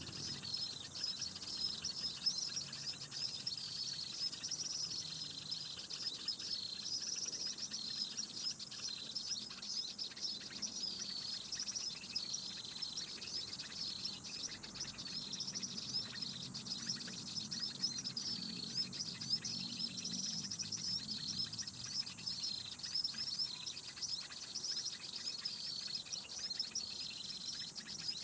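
High, short bird chirps repeating steadily and evenly, typical of a lure call played to draw small birds such as prenjak to birdlime, over a faint steady high whine.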